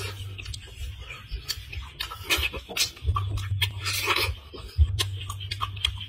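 Close-up eating sounds: a man chewing and lip-smacking on cooked tortoise meat and pulling it from the shell by hand, a run of sharp clicks and a few wet smacks. A low rumble comes and goes underneath.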